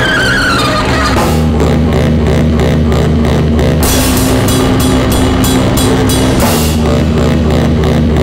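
Loud, dense noise-jazz drone music: a heavy sustained low drone under a noisy wash, with a drum kit pounding, the hits coming thick and fast from about four seconds in.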